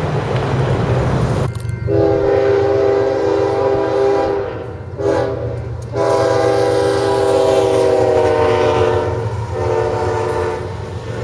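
BNSF GE diesel locomotive's air horn sounding a series of blasts for a grade crossing as the train approaches, starting about a second and a half in and broken by brief gaps, over the steady low rumble of the diesel engines. Before the horn comes in there is wind and the rumble of the approaching train.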